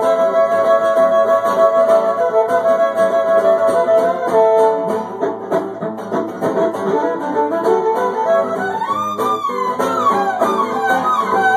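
A fiddle and an acoustic guitar playing live together, the guitar strummed under the fiddle's held notes. In the last few seconds the fiddle slides up and down between notes.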